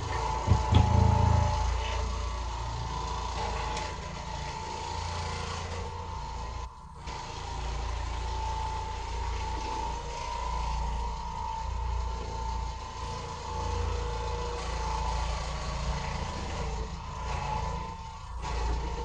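Oreck Orbiter orbital floor machine running steadily as its pad scrubs carpet: a constant motor hum with a tone near 1 kHz over a low rumble. There is a heavy low thump about a second in, and the sound briefly dips about seven seconds in.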